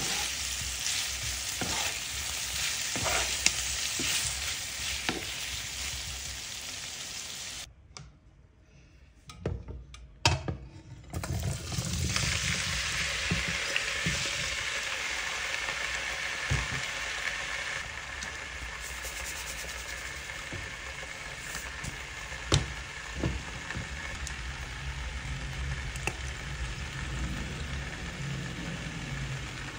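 Beef chunks and onion sizzling in a nonstick frying pan as a wooden spatula stirs and scrapes them. After a short quiet break with a few knocks, diced potatoes go into the hot pan and fry with a steady sizzle.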